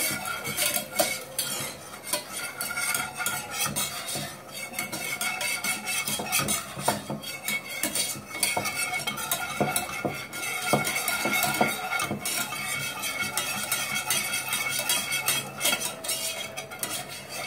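Wire whisk scraping and clinking against a stainless steel pan in quick, irregular strokes, stirring flour into melted butter to cook a roux.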